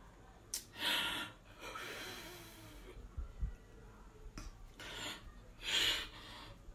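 A woman crying without words: a series of sharp, noisy breaths and sniffs, the strongest about a second in and again near the end.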